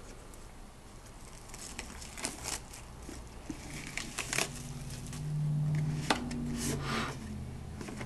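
Crinkling and rustling of packaging with scattered clicks as a box of trading cards is opened. A low hum rises in the middle and is the loudest sound for a few seconds.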